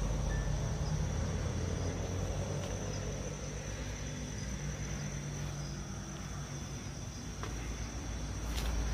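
Crickets keep up a steady high trill over a constant low rumble.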